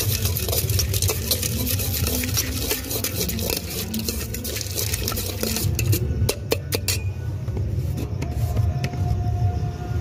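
A steel spoon stirs and scrapes a wet spice mixture in a stainless steel pot, making rapid metal-on-metal clinks. A few sharper clinks come about six seconds in, and then the stirring stops. A low steady rumble runs underneath.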